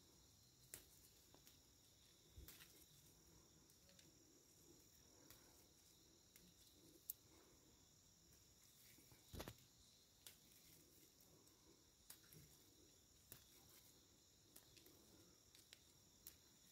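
Faint, steady high chirring of crickets, with scattered small clicks and rustles of basil leaves being plucked by hand. The loudest snap comes a little past halfway.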